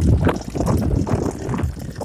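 BMW N55B30A inline-six engine running close to the microphone, a loud rough rumble with irregular sharp knocks through it: the knock the owner traces to one part of the engine.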